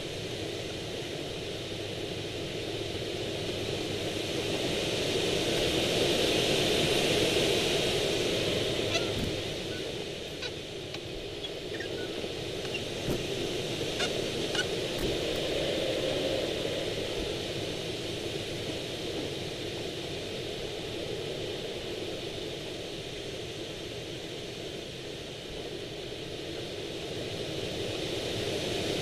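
Airflow rushing past a Swift rigid-wing hang glider in flight, swelling and fading as speed builds and bleeds off through wingovers. A few faint ticks sound around the middle.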